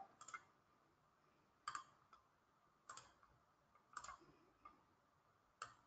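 A few faint computer mouse clicks, spaced about a second apart, over near silence.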